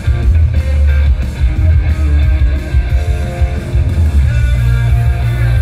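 Loud pop-rock music with strummed electric guitar over a heavy, pulsing bass beat, played over a stage sound system.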